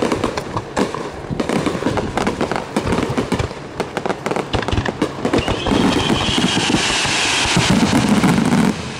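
Fireworks display: a rapid run of aerial shell bangs. Past the halfway mark it thickens into a dense, loud crackling barrage with a whistle that rises and then slides down in pitch, easing just before the end.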